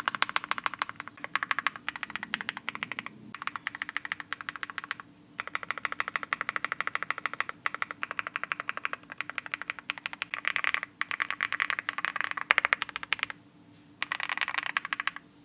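Fast typing on a Leobog HI75 mechanical keyboard with MKID Merpati switches and Akko Cream MDA keycaps: a rapid run of deep, rounded key clicks, stopping briefly three times.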